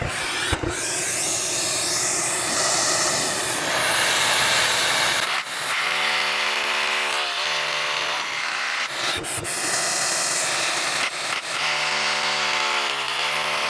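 A vacuum runs steadily at the hole while a cordless rotary hammer drills into a concrete foundation wall. The hammer drilling stands out in two spells, about five seconds in and again near the end.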